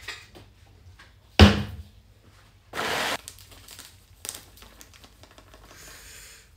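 Kitchen prep handling: one sharp knock about a second and a half in, then a short rustle of a plastic bag, a few small clicks and a faint hiss as a metal measuring cup scoops dry pancake mix out of the bag.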